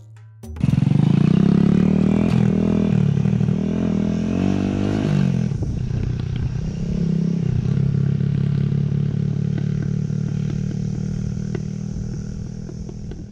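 Small motorcycle engine running, its pitch rising and falling with the revs through the first few seconds, then running steadier and fading away near the end.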